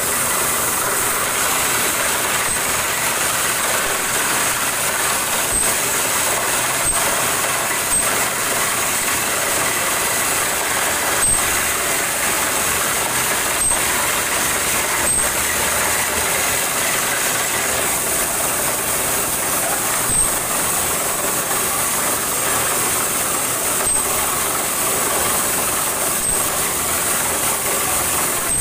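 Borewell drilling rig running on compressed air from an air compressor: a loud, steady mechanical noise with a strong hiss, and a few scattered sharp knocks.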